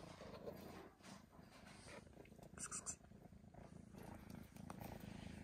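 Kitten purring faintly and steadily while eating meat, with a few soft chewing clicks and smacks.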